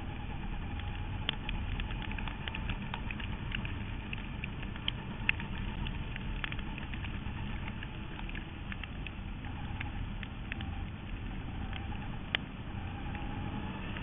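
In-car sound of a sprint car racing on a dirt track: the engine runs at speed under steady rushing noise, its note rising and falling faintly through the laps. Sharp ticks and clicks, dirt pelting the car, come throughout, with two louder cracks about 5 and 12 seconds in.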